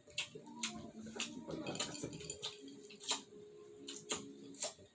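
Eating sounds from a seafood meal close to the microphone: sharp clicks and cracks, about two a second, from shells, cutlery and chewing.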